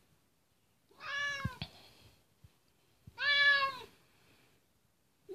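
Domestic cat meowing twice, about two seconds apart; each meow is a drawn-out call that rises and then falls in pitch, the first a little longer than the second.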